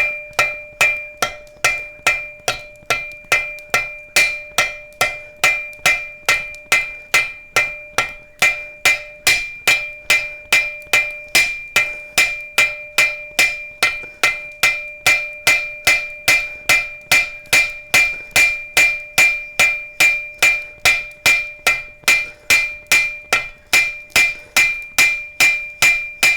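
Ball peen hammer striking hot steel bar stock on an anvil at a steady rhythm, about two to three blows a second, drawing the metal out. The anvil rings with a clear, sustained metallic tone under the blows.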